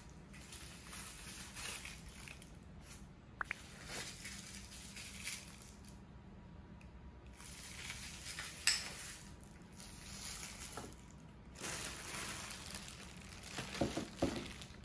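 Clear plastic wrap rustling and crinkling in repeated stretches as it is handled and pulled off, with a few sharp clicks and some handling knocks near the end.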